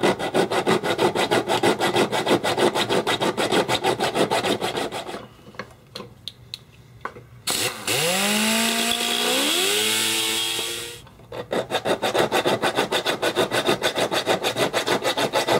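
Hand-filing steel with a square jeweler's file, cutting a notch into an M14 magazine: rapid, even rasping strokes, several a second. The filing stops after about five seconds. Around eight seconds in, a small rotary tool with a slitting saw runs for about three seconds with a hiss and a whine that rises in pitch, then stops. The filing strokes resume for the last few seconds.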